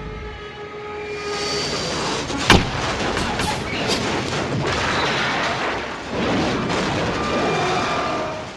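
A loud, sustained rushing noise with one sharp bang about two and a half seconds in and a few smaller cracks after it; it cuts off suddenly at the end.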